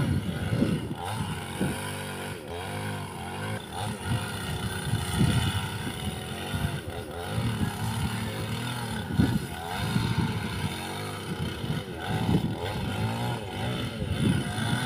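Chainsaw engine running and revving up and down over and over as it cuts into the base of a dead tree.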